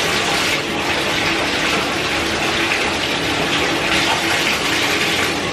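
Bathtub faucet running, a steady stream of water pouring from the spout into the tub.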